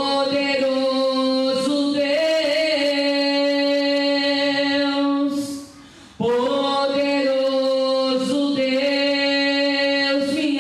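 A woman singing solo into a handheld microphone, unaccompanied, in long held notes. There are two phrases, with a short breath about halfway through.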